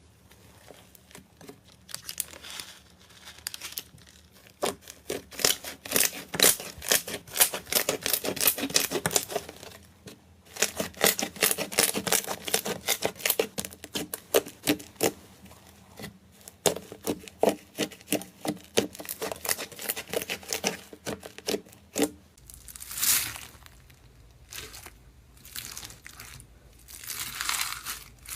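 Slime being worked by hand: quick runs of crackling, popping clicks as it is squeezed and pressed. About two-thirds of the way in the sound changes to slower, softer crinkling swells.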